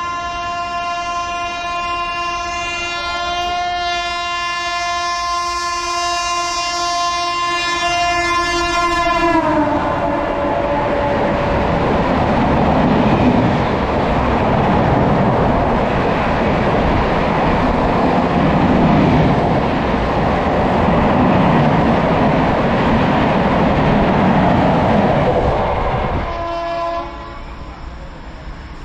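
An express train holds a long multi-tone horn as it approaches at speed; the horn's pitch drops as the train reaches the platform, about nine seconds in. The train then rushes through with a loud steady roar and wheel clatter. Near the end the sound cuts to a fainter horn from a distant approaching train.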